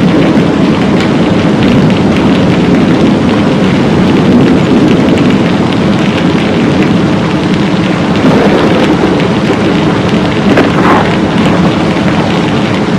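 Heavy rainfall: a loud, steady, dense rush of rain, deepest in the lower range, with a couple of brief swells about two-thirds of the way through.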